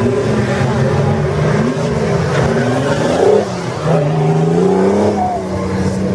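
Trial 4x4 competition vehicle's engine revving hard under load, its pitch rising and falling several times, with a brief drop about halfway through before it climbs again and holds.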